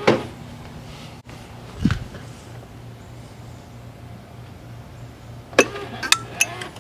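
A steady low hum, then from a little over five seconds in a quick run of sharp clicks as the flip-up headlight of a 1985 Honda Elite Deluxe scooter lifts open.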